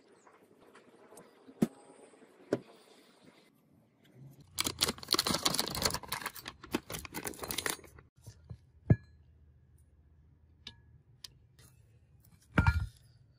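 Paper template rustling and crackling for about three seconds as it is lifted off a steel plate, with a few sharp clicks before and after. Near the end, a short knock as the steel plate is moved.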